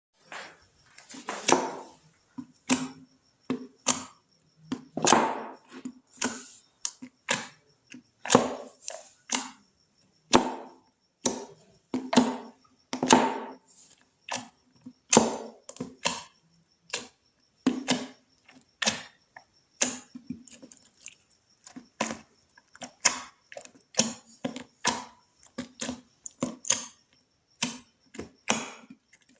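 Slime being squished and pressed, giving an irregular string of sharp pops and squelches, one or two a second.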